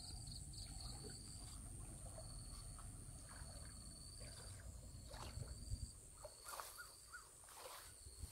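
Insects chirring in the evening: a steady high whine and a higher-pitched trill that breaks off and starts again. A few faint knocks come in the later half.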